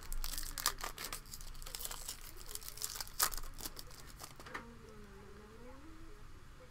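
Foil trading-card pack being torn open and crinkled by hand: a dense run of sharp crackles that dies away about four and a half seconds in.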